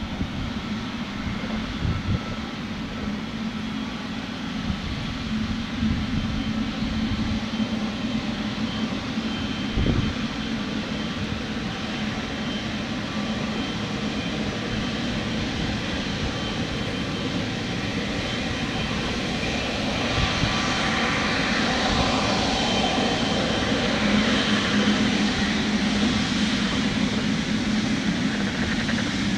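Boeing 777-300ER's twin GE90 turbofan engines running, a steady jet roar with faint whining tones that grows louder over the last third. Wind buffets the microphone underneath.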